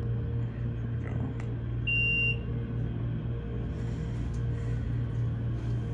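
Otis Series 1 elevator car riding with a steady low hum, and a single electronic beep of about half a second from its car signal about two seconds in.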